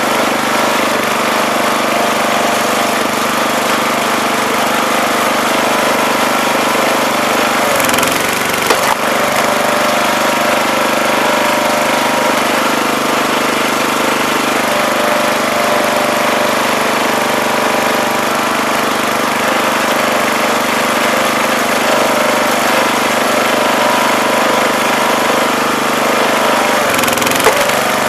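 Small 5 hp gasoline engine on a Duerr 35-ton log splitter running steadily and driving its two-stage hydraulic pump. About eight seconds in, and again near the end, the engine note sags briefly under load, with a sharp crack as the oak splits.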